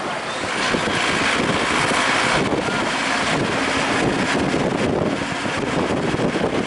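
Steady road noise from inside a moving vehicle: engine and tyres under a constant rush of wind.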